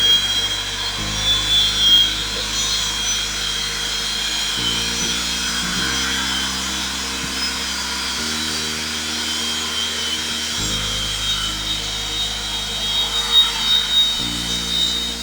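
Background music of sustained chords that change every couple of seconds, over the steady high whine and rushing of jet engines.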